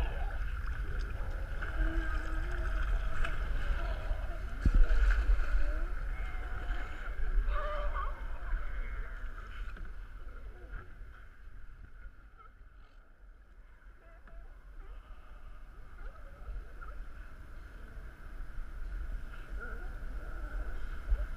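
A chorus of California sea lions barking from a crowded dock, thinning out midway and building again near the end, over a steady low wind rumble on the microphone. A single knock about five seconds in.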